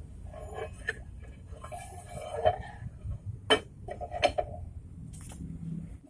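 Sharp metal clinks and knocks of tools and parts as a truck's rear wheel axle shaft is being fitted, several distinct clinks with some scraping between them.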